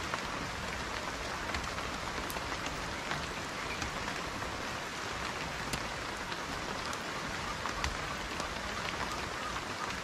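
Steady rain: a continuous even hiss with many scattered individual drops ticking through it.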